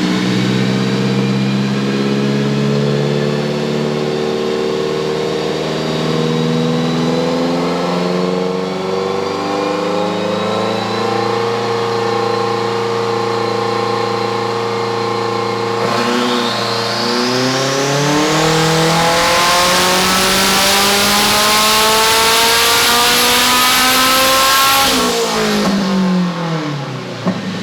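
Turbocharged race car engine on a chassis dyno making a pull on 28 psi of boost. The revs climb slowly under load, then rise steeply from about 16 s in with a high whine sweeping up above the engine note. Near the end the throttle closes and the revs fall.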